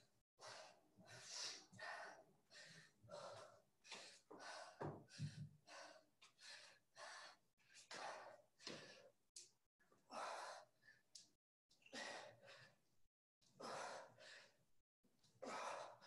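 A person breathing hard and fast through the mouth during exercise, faint, a steady run of short breaths in and out, roughly two a second. Brief sudden dropouts break the sound.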